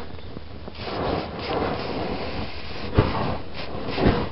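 Hammer blows on a burning, grease-coated 3rd-generation iPod nano: two sharp strikes about a second apart in the second half, after a stretch of hissing noise.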